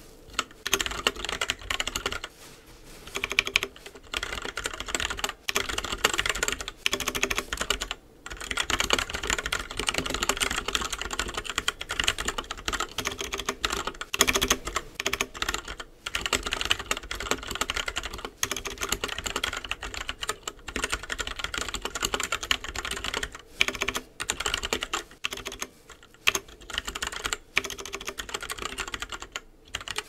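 Fast touch-typing on a mechanical keyboard with stock Gateron Brown tactile switches: a dense, rapid run of key clacks with a few short pauses.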